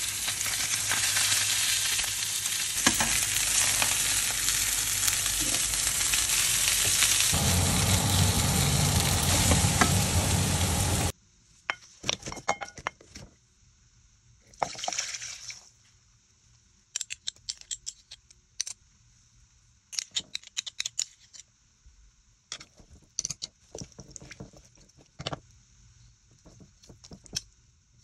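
Chicken thighs sizzling loudly in a hot frying pan for about the first eleven seconds, cut off suddenly. Then, much quieter: stock poured into a ceramic slow cooker for about a second, and scattered clicks of metal tongs setting the browned thighs in the crock.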